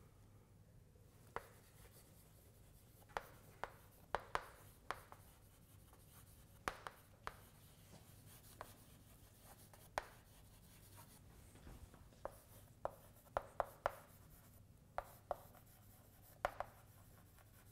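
Chalk writing on a blackboard: a string of short, sharp, irregular taps and scratches as letters are written, with brief pauses between strokes.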